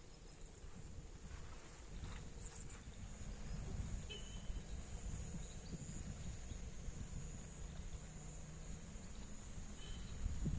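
Insect chorus, a steady high-pitched drone, over a fluctuating low rumble, with a couple of short faint chirps.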